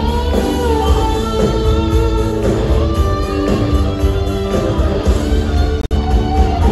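A rock band playing live in an arena, with an electric guitar leading in held notes that slide in pitch over a steady bass. The sound drops out for an instant about six seconds in.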